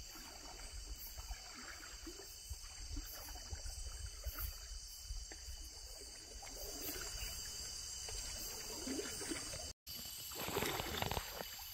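Steady chorus of night insects, crickets among them, a continuous high-pitched drone over a low rumble. The sound breaks off for an instant near the end.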